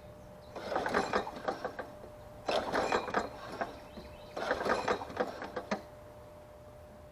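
Recoil pull-starter of a Craftsman self-propelled push mower, yanked three times, each pull a second-long rattle, with the engine not catching: it is unprimed, its primer bulb not yet pressed.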